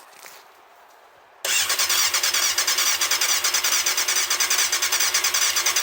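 Yamaha Thundercat's inline-four being turned over by its electric starter, an even, fast pulsing that starts about a second and a half in, without the engine firing. This is the first start attempt after a carburettor overhaul, with the fuel pump disabled so it runs only on the fuel left in the carbs.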